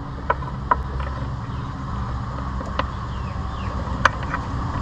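A few sharp clicks and ticks as hands work a wire and a plastic connector in a car's engine bay, the loudest near the end. Under them runs a steady low rumble.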